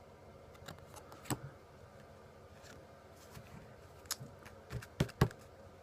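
Trading cards being handled: a few scattered light clicks and taps, with a cluster of sharper taps about four to five seconds in, the loudest near the end.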